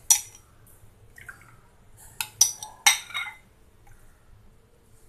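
Metal ladle clinking against a glass bowl while scooping kulfi mixture, once right at the start and in a quick cluster of clinks about two to three seconds in, with the liquid mix pouring and dripping into the mould.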